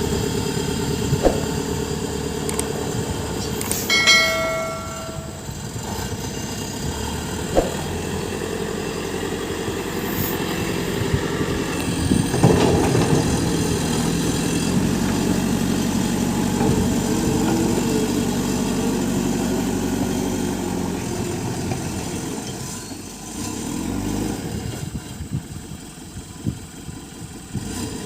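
JCB backhoe loader's diesel engine running steadily under working load, with a few sharp knocks, probably from the bucket and stones. A short pitched tone sounds about four seconds in, and the engine drops quieter near the end.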